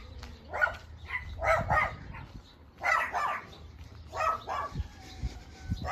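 A dog barking several times, in short runs of two or three barks.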